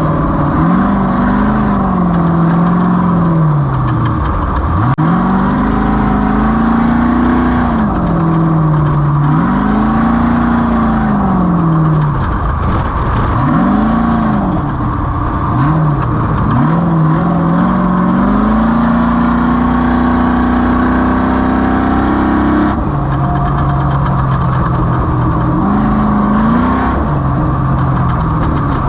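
Off-road race vehicle's engine driven hard, its pitch rising and falling every few seconds as the throttle is opened and lifted, over a steady rush of noise.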